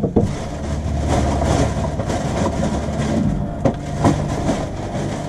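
Rustling and clatter of things being handled and moved about on a counter, with a few sharp knocks, two of them close together near the end, over a steady low hum.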